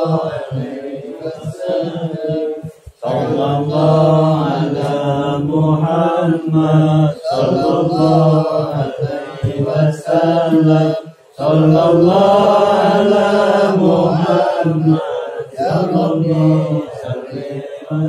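Men's voices chanting sholawat, Islamic devotional praises of the Prophet, together in long melodic phrases, with short pauses about 3 seconds in and again about 11 seconds in.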